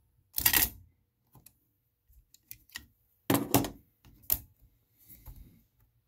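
Marantz PMD430 portable cassette recorder's mechanical transport keys and counter reset button clicking as they are pressed and released. A string of separate clicks: the loudest about half a second in and about three and a half seconds in, with lighter ticks between and near the end.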